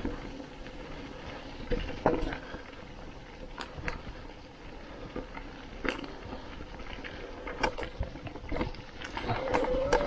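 Electric mountain bike rolling down a trail covered in dry fallen leaves: a steady rustle from the tyres with scattered sharp clicks and knocks as the bike rattles over bumps. Near the end the noise gets louder and a short wavering whine comes in.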